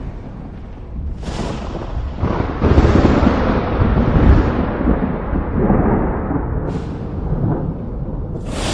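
Thunder: sharp cracks about a second in and again shortly after, rolling into a heavy low rumble that slowly fades. A brief crack comes near 7 seconds and another strike just before the end.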